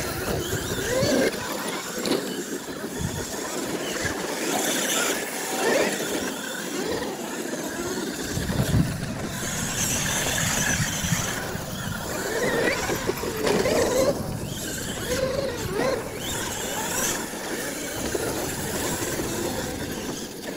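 Radio-controlled solid-axle monster truck driving on dirt: a high motor-and-gear whine rising and falling in pitch as it speeds up and slows, with a hiss of dirt spraying from the tyres.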